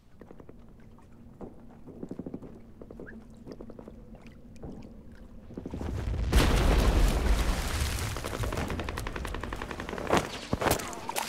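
Battle sound effects of rapid gunfire rattling in quick volleys. About six seconds in it swells into a loud, heavy barrage with a deep rumble, and a few sharp single shots crack near the end.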